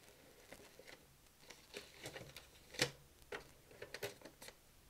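Fan-fold printer paper being fed around the platen of a Teletype Model 43 teleprinter: faint paper rustling and handling with scattered small clicks, the sharpest a little before three seconds in.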